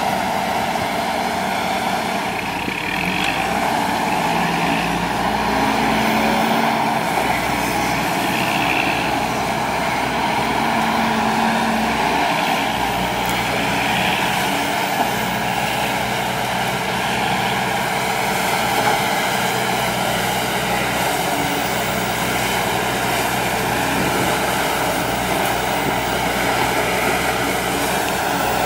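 Volvo crawler excavator's diesel engine running steadily under load as the arm digs and swings. The drone holds level throughout, with its tones shifting a little now and then as the load changes.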